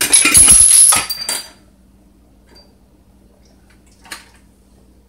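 A metal sheet pan clattering and scraping on the stovetop for about a second and a half as floured beef short ribs are tossed on it, with a metallic ring. A faint knock follows about four seconds in.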